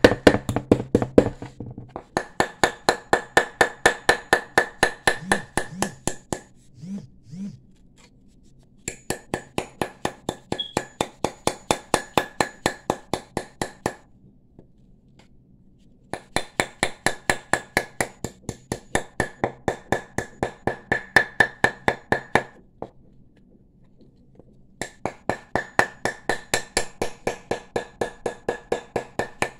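A metal-headed hammer rapidly tapping a brass wire bangle against a wooden mandrel, forming its curve. The blows come about four a second in runs of four to six seconds with short pauses between, and each run carries a faint metallic ring.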